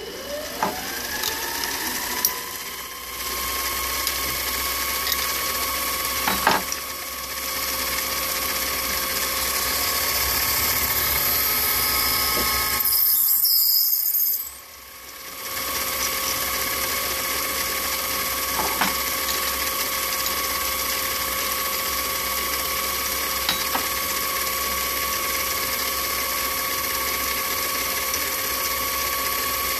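Metal lathe spinning up at the start and then running with a steady gear whine. About halfway through, a drill bit in the tailstock chuck bores into the spinning workpiece with a brief high squeal, and the lathe then runs on steadily.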